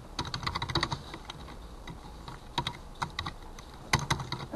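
Computer keyboard being typed on in quick runs of key clicks with short pauses between, the loudest few keystrokes near the end.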